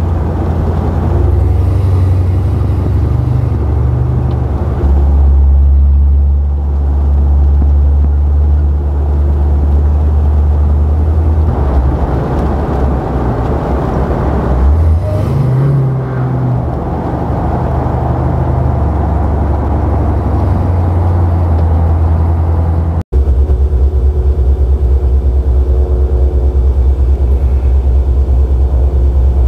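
Supercharged LT4 V8 of a 1973 Chevrolet Caprice convertible giving a deep, steady rumble as the car is driven, rising briefly in pitch about halfway through. An abrupt cut about two-thirds of the way in is followed by an even, steady engine rumble.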